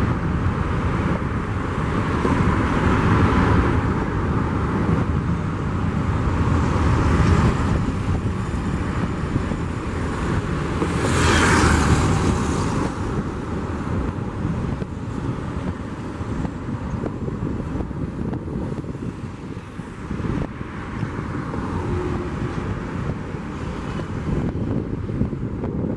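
Jet noise from an Airbus A330-900neo's Rolls-Royce Trent 7000 turbofans at climb power, a steady rumble that slowly fades as the airliner climbs away. A brief louder rush about eleven seconds in.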